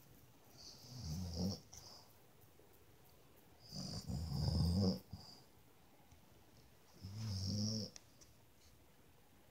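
A woman snoring in her sleep: three snores about three seconds apart, each a low buzz with a hiss.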